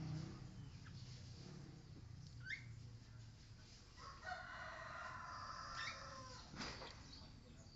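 A rooster crowing once, starting about four seconds in and lasting over two seconds. A short rising bird chirp comes a couple of seconds earlier.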